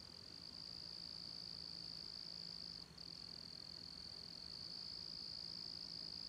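Faint, steady high-pitched chorus of crickets trilling, with a brief break about three seconds in.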